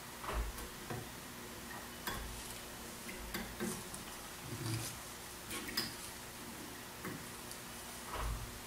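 Irregular light clicks and soft knocks of a compound microscope being handled: its knobs are turned and the objective is changed to zoom in on a sample.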